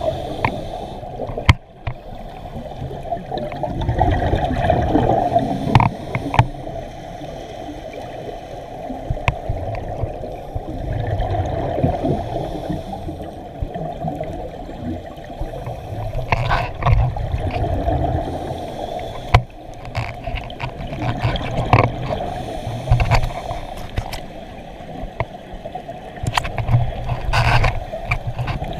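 Scuba divers breathing underwater, heard through a GoPro's waterproof housing: regulator exhalations send bubbles rushing past in swells about every five seconds, over a steady underwater hiss, with a few sharp clicks and knocks.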